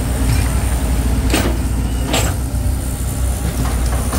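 A heavy engine running steadily with a low rumble and a thin high whine, and two sharp clicks near the middle.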